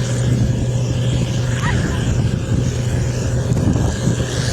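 An engine running steadily, a constant low hum with rumble beneath it.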